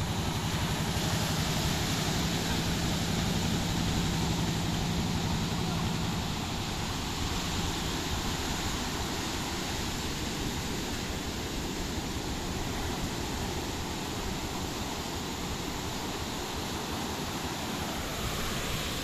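Small fishing boat at sea: a steady rush of wind and water, with a low, even engine hum over the first several seconds that then fades away.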